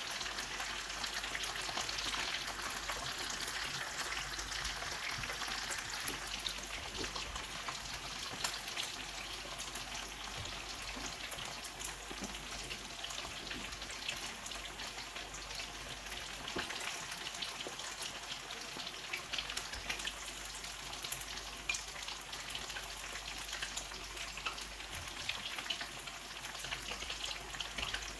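Food deep-frying in hot oil: a steady crackling sizzle full of small pops, a little louder in the first few seconds.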